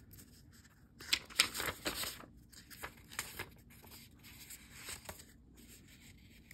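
A stack of thin paper, cardstock and vellum sheets being leafed through and flicked by hand. Papery rustles and small flicks come thickest about a second in, then thin out to softer handling.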